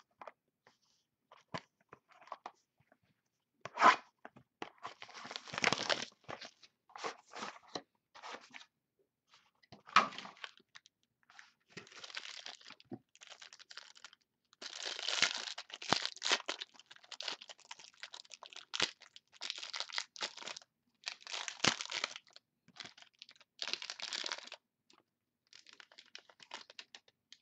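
Hands tearing open the wrapping of a 2011 Gold Standard football card box and handling the cards inside. The sound is a string of short, irregular tearing, crinkling and rustling noises, with a sharp snap about four seconds in.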